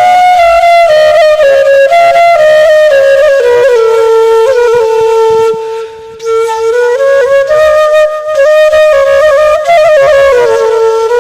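Background music: a flute-like wind instrument playing a slow melody of held, stepping notes, which dips briefly about six seconds in.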